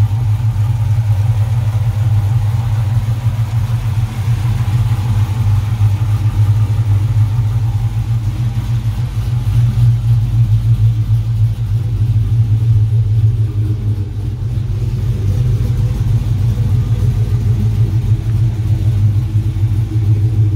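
A 2008 Dodge Charger R/T's 5.7 L Hemi V8 idling steadily, just reassembled with new multi-layer head gaskets and ARP head bolts.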